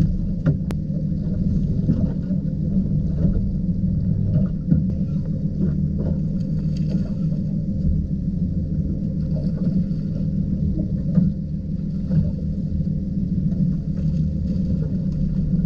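Steady low rumble, with a few faint clicks over it.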